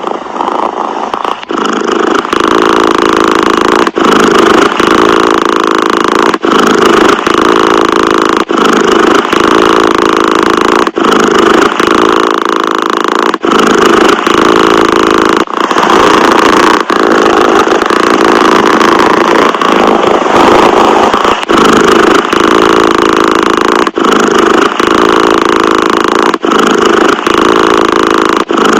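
Domestic cat purring: a steady, loud rumble broken by a short gap every one to two seconds.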